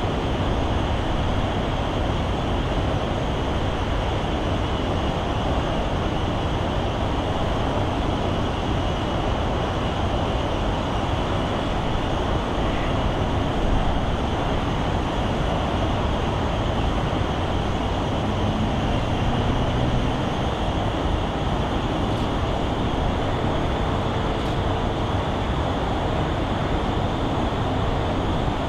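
Jet engines of a Boeing 787 Dreamliner at taxi power, a steady even noise as the airliner rolls past.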